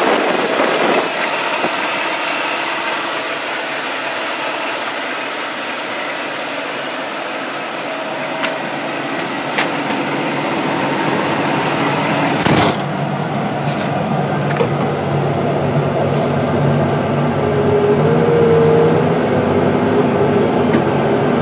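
Deutz-Fahr 9340 TTV tractor's 7.8-litre six-cylinder turbo diesel running steadily while pulling a tillage disc, heard around the cab. A few clicks and one sharp knock about twelve and a half seconds in.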